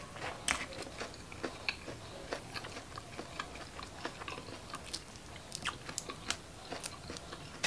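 Close-miked chewing and biting of crispy fried shrimp, shells included: a steady run of irregular sharp crunches and crackles.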